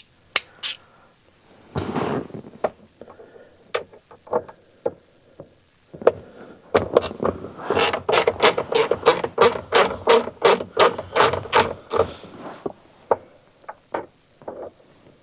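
Hand tools working T20 Torx screws out under a car's steering column: scattered clicks and knocks, then a fast, regular run of clicks, about four a second, for several seconds in the middle.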